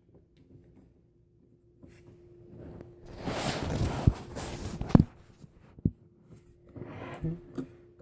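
Handling noise from a plastic toy: about two seconds of rustling with two loud, sharp clicks, then a single click and some lighter scattered rustling.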